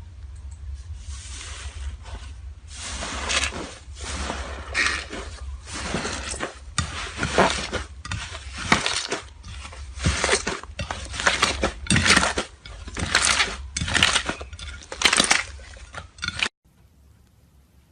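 Slime being pressed and squeezed by hand: a run of crackling, clicking squishes, about one a second, which cuts off abruptly near the end.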